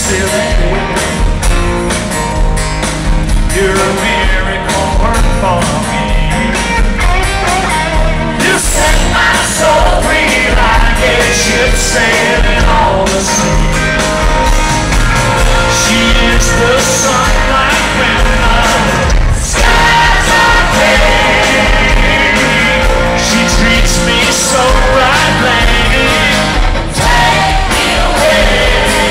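Country-rock band playing live through a concert PA, with a male lead vocal and guitars over bass and drums, heard from within the crowd.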